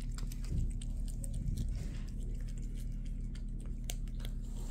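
Two cats licking and lapping a purée cat treat from a squeeze tube held up close, a run of quick, irregular wet clicks of tongues and mouths.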